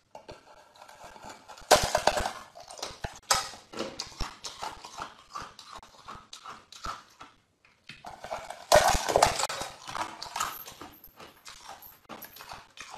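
Someone biting and chewing a clear block of ice: sharp cracks and crunches, loudest about two seconds in and again around nine seconds in, with smaller crackles and chewing between.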